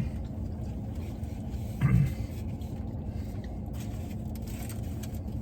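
Someone eating a carne asada street taco: faint chewing sounds over a steady low rumble, with a short hummed 'mm' about two seconds in.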